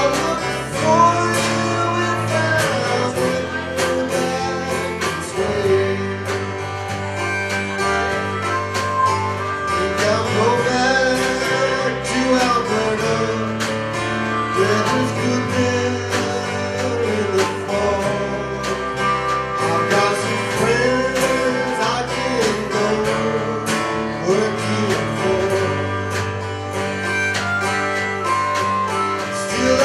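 Strummed acoustic guitar in a country-folk song played live, with a wavering melody line carried above it.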